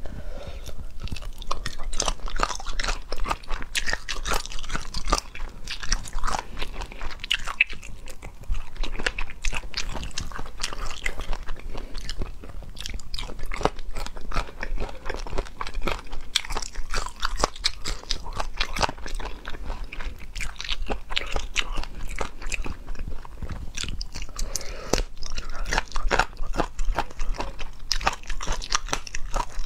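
Close-miked biting, chewing and crunching of braised chicken feet in spicy sauce, a steady run of irregular crackling clicks.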